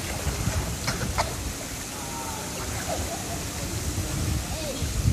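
Outdoor pool: a steady rush of water from spouts pouring into the pool, with splashing from a swimmer's backstroke.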